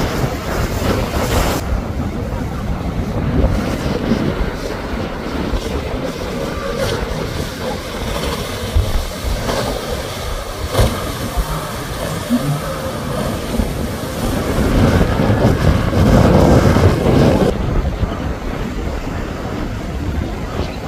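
Motorboat engines running with water rushing past the hulls, and wind buffeting the microphone. The sound swells for a couple of seconds about three quarters of the way through.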